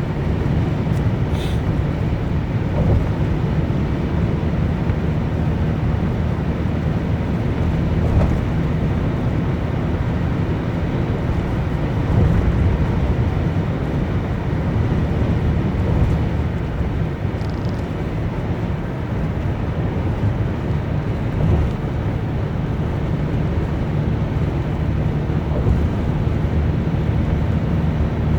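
Mitsubishi Zinger running steadily with a low, even drone and no abnormal noises, which the owner takes as the sign that it is in normal condition.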